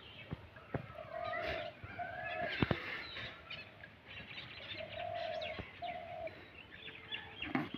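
Birds calling: a repeated pair of steady, low, hoot-like notes about every four seconds, with higher chirps from other birds. A few sharp knocks, the loudest a little under three seconds in.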